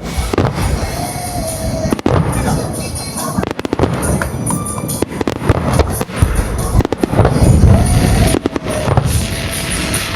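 Aerial fireworks bursting: heavy low booms from the shells with clusters of rapid crackling between them, over music played for the show.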